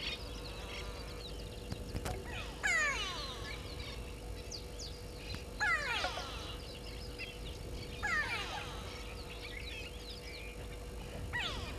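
A bird calling four times, about every three seconds; each call is a quick cascade of falling whistled notes.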